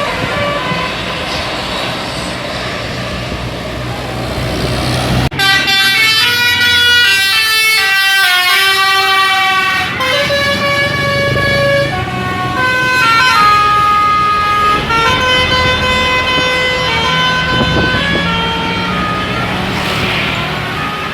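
Indonesian bus 'telolet' Basuri multi-tone air horn playing a melody. It cuts in suddenly about five seconds in, the pitch stepping from note to note, over road traffic noise.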